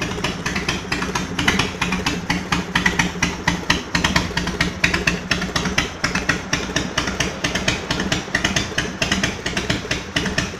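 Harley-Davidson FXR's V-twin engine idling, a fast, uneven pulsing beat with no revving.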